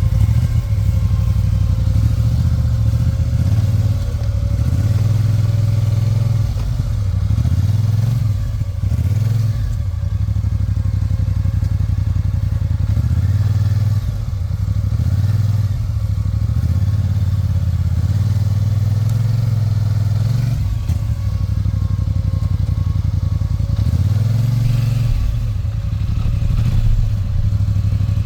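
ATV engine running steadily, the throttle easing off and opening up again several times.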